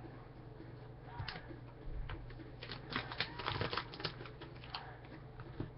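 A run of light clicks and taps from trading cards being handled and squared up, busiest in the middle, over a steady low electrical hum.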